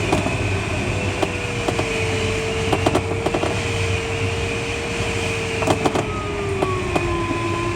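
Steady airflow noise in the cockpit of a Schleicher ASK21 glider in flight, with a steady tone that slides slowly lower after about five seconds and a second, higher tone joining a second later. Scattered sharp clicks and knocks sound through it.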